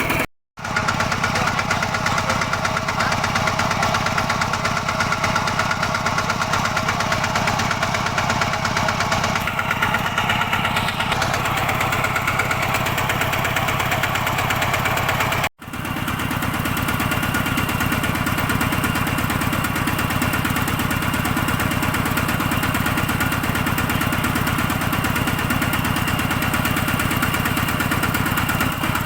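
A two-wheel walking tractor's single-cylinder diesel engine running steadily with even chugging firing pulses. It cuts out abruptly for a moment twice, and after the second break it runs with a deeper, heavier tone.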